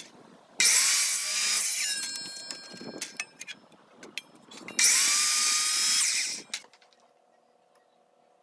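DeWalt DW716 12-inch compound miter saw run twice in short bursts, cutting wooden trim molding. After the first cut the blade rings as it spins down.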